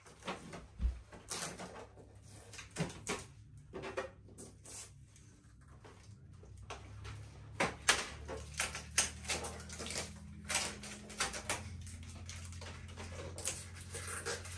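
Packing tape being peeled off a new printer and packaging handled: irregular clicks, knocks and scraping. A low steady hum comes in about halfway through.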